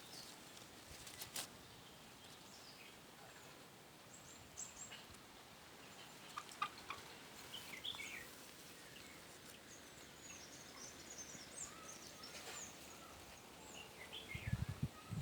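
Faint outdoor ambience with small birds chirping, short high calls scattered through most of the stretch.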